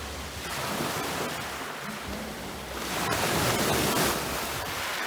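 Steady rushing noise, most likely wind buffeting the microphone, growing louder about three seconds in.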